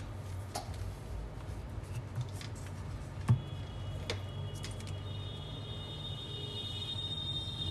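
A few light clicks and taps of the multimeter test leads and circuit board being handled on the bench, the sharpest about a third of the way in, over a low steady hum. A faint steady high-pitched tone sets in about halfway through.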